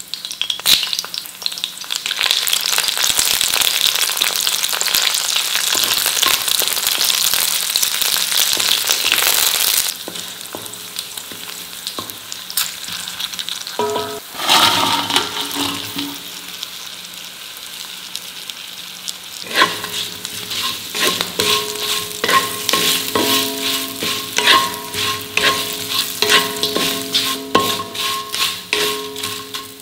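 Garlic and green chillies sizzling loudly in hot oil in a cast-iron kadai, with a fresh burst of spluttering about halfway through as curry leaves go in. In the last ten seconds a spatula scrapes and taps quickly against the pan as fried cauliflower pieces are tossed in the oil.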